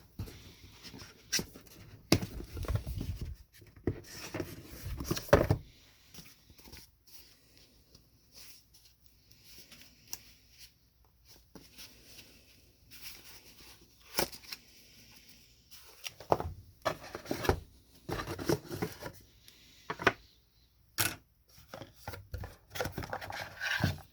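Packaging being handled during an unboxing: irregular rustling and tearing with scattered clicks and light knocks, in bursts with quiet gaps.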